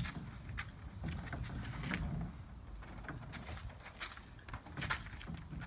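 Scattered light knocks and scrapes from an aluminium boat being handled and slid onto a car's roof rack.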